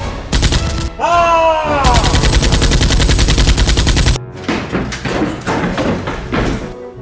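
A rapid burst of automatic gunfire, a run of fast, evenly spaced shots lasting about two seconds, preceded by a few sharp shots and a falling tone, over background music.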